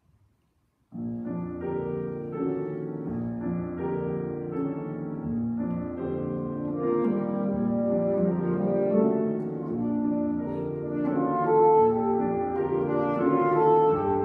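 Saxophone and piano start playing a chamber-music passage together about a second in, after near silence, the saxophone holding sustained melodic notes over the piano.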